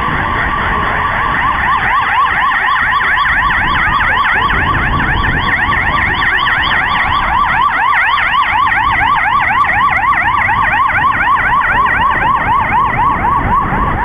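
Emergency vehicle siren sounding a fast yelp, its pitch rising and falling about four times a second.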